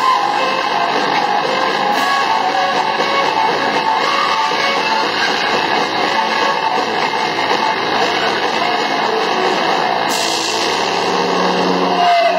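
A school rock band playing live, guitar to the fore, loud and continuous.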